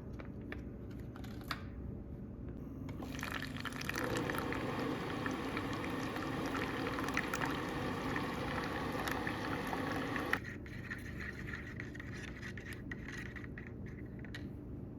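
Water running or pouring into a container, a steady hiss that starts about three seconds in and stops abruptly about seven seconds later, with small clicks and knocks around it.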